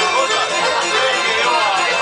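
Balkan folk dance music for a kolo line dance, with a keyboard-led melody over a quick, steady beat.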